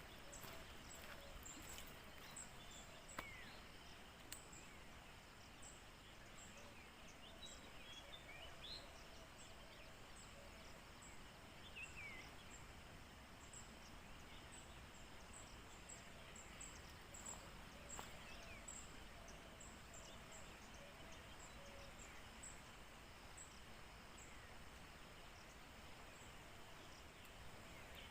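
Faint outdoor ambience with small birds chirping: short high chirps repeating about once or twice a second, and a few brief whistled notes.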